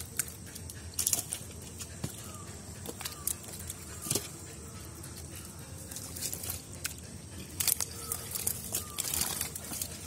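Wet slaps and squelches of hands pulling fish out of a mud-covered net, with fish flapping in the mud. The sharpest slaps come about a second in, around four seconds and near the end, over faint short falling chirps.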